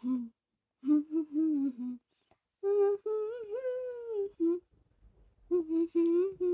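A child humming a song's melody with closed lips, in several short phrases broken by brief pauses.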